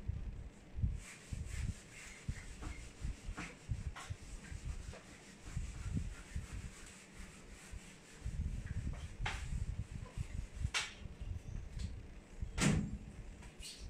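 A whiteboard being wiped with an eraser: irregular rubbing strokes against the board, mixed with low thuds and scattered knocks and clicks.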